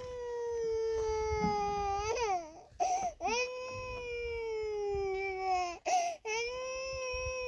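A baby crying in three long, drawn-out wails, each slowly falling in pitch, with short catches of breath between them.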